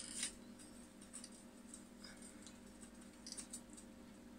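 Faint, scattered light clicks and taps as a welder's earth clamp is fitted and worked onto the tops of two steel rings, over a low steady hum.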